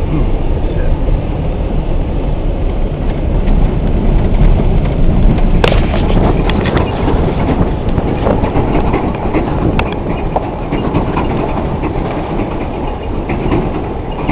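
Truck driving: a steady low rumble with scattered knocks and rattles, and a sharper clank about six seconds in.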